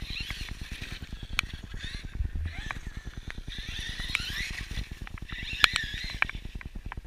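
Electric motor and drivetrain of an Axial Yeti XL RC rock racer whining up and down with the throttle as it drives over snow, with a few sharp clicks, the loudest a little before six seconds in. A steady low rumble of wind on the microphone runs underneath.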